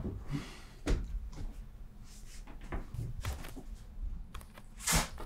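A few soft knocks and rustles of someone moving about and handling things in a small room, with a stronger knock about a second in and a short scrape near the end.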